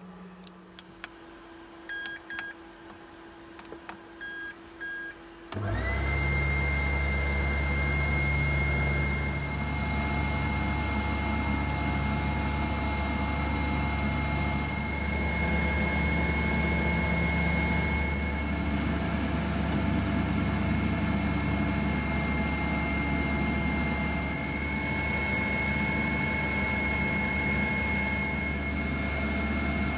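Tefal ActiFry 2-in-1 air fryer: a few short beeps from its control buttons, then about five seconds in its fan starts abruptly and runs steadily with a low hum and a high, even whine.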